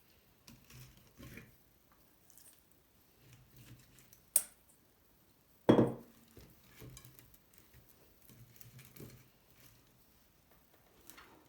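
Dishes and utensils being handled in a kitchen: soft scrapes and taps, a sharp clink a little over four seconds in, and a louder knock with a short ring just after.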